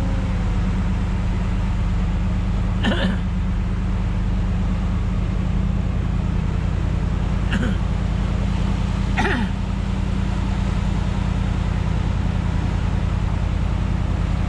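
Large truck's engine running steadily as it drives through floodwater, a heavy low drone. Three brief, sharp sounds cut in along the way.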